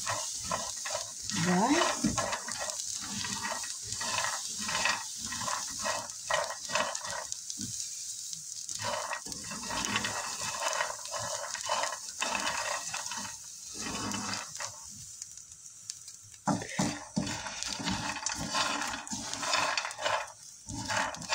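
Roasted groundnuts and corn kernels rattling and scraping against a frying pan as they are stirred with a wooden spatula, in quick uneven strokes with two short pauses. They are being stirred to dry off the salt water poured over them.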